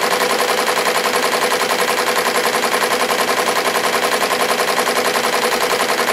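SWF commercial embroidery machine stitching lettering into a baseball cap: a steady, rapid chatter of needle strokes, about ten a second, at a slower speed suited to caps.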